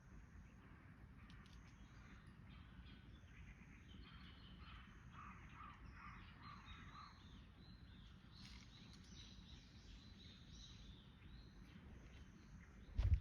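Faint outdoor ambience with a low rumble and distant birds calling. A run of about five evenly spaced calls comes in the middle. A single thud comes right at the end.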